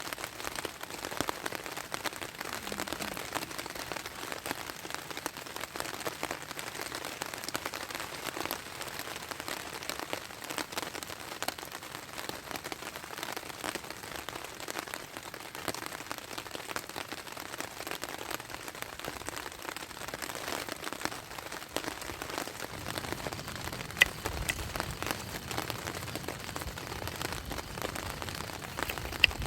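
Steady rain falling and pattering on surfaces. Two sharp clicks stand out near the end.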